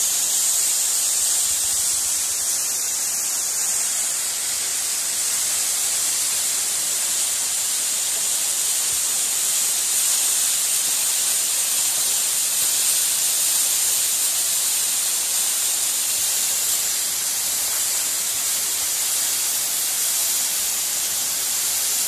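South Falls waterfall plunging into its pool: a steady, hissing rush of falling water and spray.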